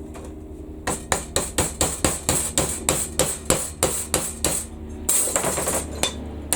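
Hammer blows on steel in a quick, even run of about five a second for nearly four seconds, bending a partly sawn steel piece over at its cut. A short scraping, rattling noise follows near the end.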